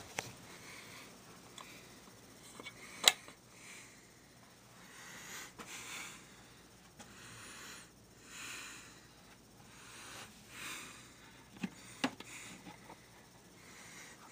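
Breathing close to the microphone, a soft noisy breath every second or two. A sharp click comes about three seconds in and two more come later, likely from handling the camera.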